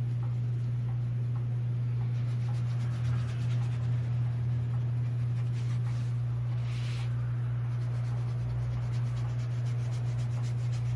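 A stiff-bristled brush scrubbing in small circles on the edge of a painted board during dry-brush shading: a faint scratchy rubbing with one brief hiss about seven seconds in. A steady low hum, louder than the brushing, runs underneath.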